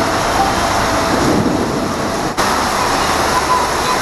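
Heavy rain pouring down, a steady loud hiss, with a brief break about halfway through before it carries on.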